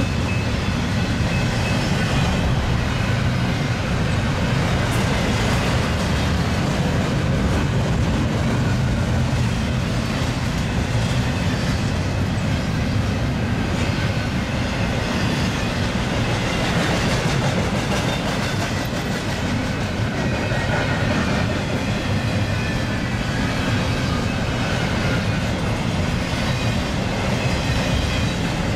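Double-stack intermodal container train rolling past at speed: a steady rumble and clatter of freight-car wheels on the rails, strongest in the low range and unbroken throughout.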